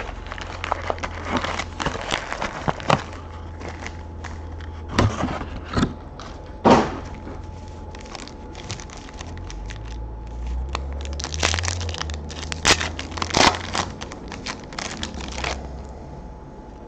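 Trading-card hobby box opened and its foil-wrapped card packs handled, stacked and torn open: irregular crinkling and crackling of foil and cardboard with sharp taps, busiest a little past the middle.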